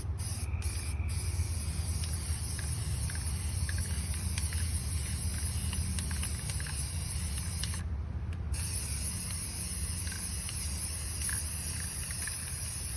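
Aerosol spray-paint can hissing in long sprays, with a few short breaks near the start and one about two-thirds of the way through, over a steady low rumble.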